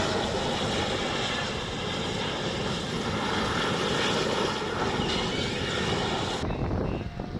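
Steady, dense rushing roar of a lorry burning fiercely, which cuts off abruptly near the end.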